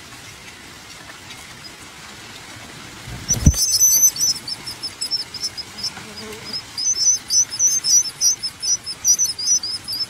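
Nestling birds giving rapid, high-pitched begging chirps, several a second, starting about three seconds in just after a low thump.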